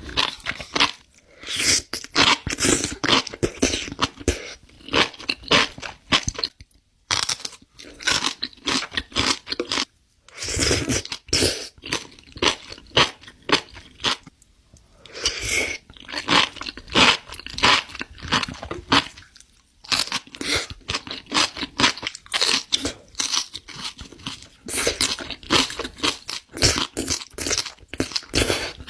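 Close-miked crunchy chewing and biting of food, in runs of rapid crackling crunches with a few short pauses between mouthfuls.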